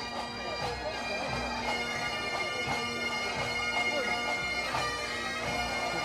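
Pipe band playing Highland bagpipes: steady drones under the chanter melody.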